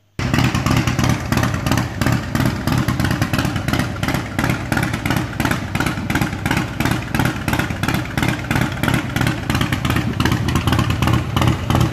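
Harley-Davidson Fatboy's 96 ci Twin Cam V-twin, fitted with Screamin Eagle SE204 stage 2 cams, idling through aftermarket chrome exhaust pipes with a rapid, even pulse. This is how the engine idles with the new stage 2 cams.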